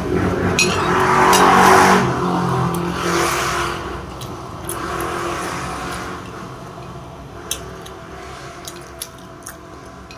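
A motor vehicle passing by, loudest about two seconds in and then fading away. A few light clicks follow near the end.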